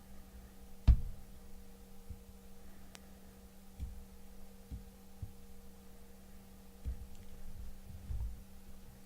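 Faint steady electrical hum with a few dull low thumps, the loudest about a second in.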